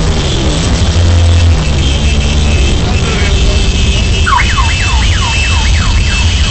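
Motorcycle engines rumbling in a large group ride, and from about four seconds in a siren yelping, about three quick rising-and-falling sweeps a second.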